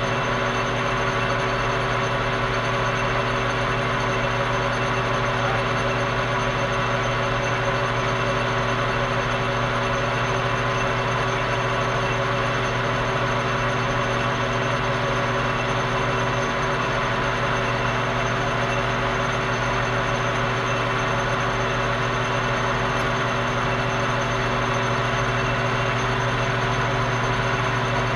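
Metal lathe running steadily, its motor and drive giving a constant hum with an even whine above it, during a last light finishing cut to bring a bore to size.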